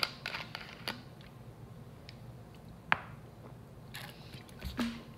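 Screw cap of a plastic drink bottle twisted open with a click and a short hiss, then a couple of sharp clicks. Near the end come sips and swallows from the bottle.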